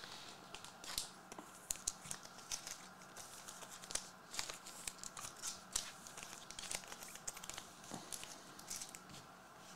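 Foil wrapper of a 2023 Chronicles baseball card pack crinkling and tearing as it is opened by hand, with the cards inside being handled: a faint string of short crackles.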